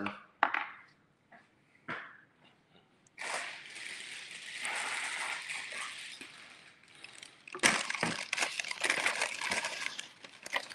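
Water running steadily for about four seconds, then a quick run of knocks and clatter.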